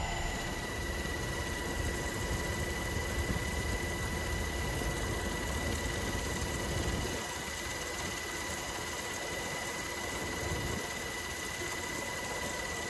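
Steady drone of an aircraft's engines heard from inside the aircraft, with a constant high whine over a deep rumble. The rumble thins out about seven seconds in.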